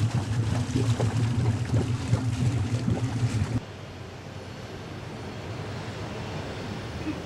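Boat's inboard engine idling with a steady low hum while the boat goes ahead very slowly, with a few knocks on deck. About three and a half seconds in it cuts to a quieter ambience of light wind and water.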